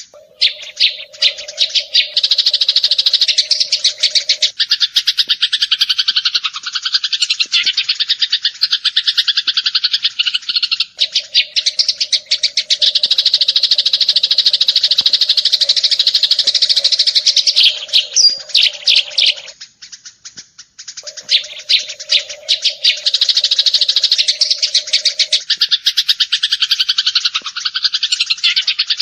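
Eurasian tree sparrow chirping in a fast, almost unbroken rapid-fire stream of high notes, dropping off briefly about two-thirds of the way through. A steady low hum comes and goes underneath.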